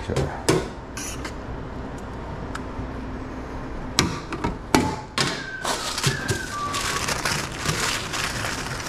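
A few sharp clacks of a metal fork and serving gear against stainless steel food-well pans, then in the last few seconds paper rustling and crinkling as a hot dog is wrapped.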